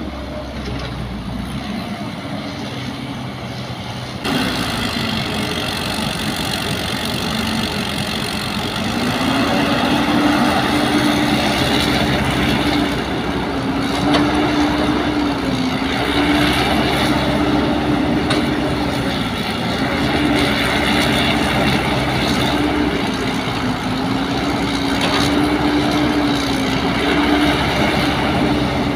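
Truck diesel engines running for the first few seconds. Then a Caterpillar hydraulic excavator's diesel engine works under load as it digs and loads soil into a dump truck, its pitch rising and dipping over and over with each dig-and-swing cycle.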